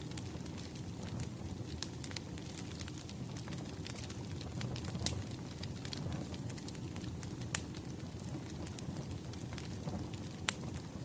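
Wood fire crackling: a steady low rumble of burning logs with scattered sharp pops, the loudest about halfway through, again about two thirds in, and near the end.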